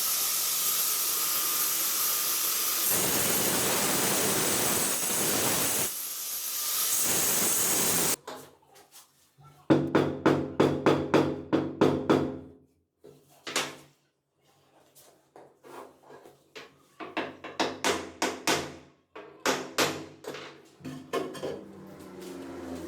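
A steady hiss for about eight seconds that cuts off suddenly, then runs of quick hammer taps with a slight ring, several strokes a second, in separate groups.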